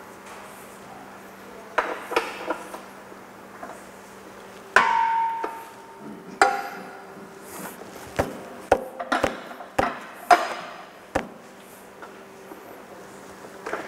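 Metal hand tools and engine parts knocking and clanking irregularly as a crankshaft pulley is fitted to the front of the engine, about a dozen sharp knocks, one near five seconds in ringing on briefly.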